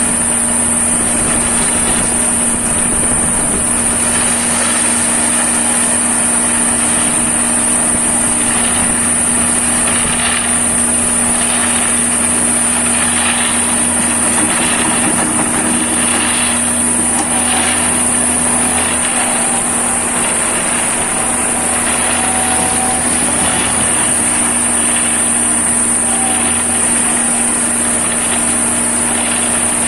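Self-loading concrete mixer's engine running steadily under a constant high-pitched whine.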